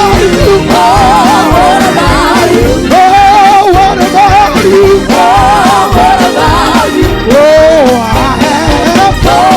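Live gospel music: a loud, melismatic solo voice with heavy vibrato sings over a band with a steady beat, a church praise song.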